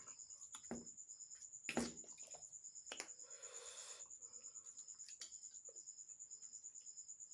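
A cricket chirping in a steady, fast pulsing trill, with a sharp click about two seconds in, another a second later, and a brief rustling noise just after.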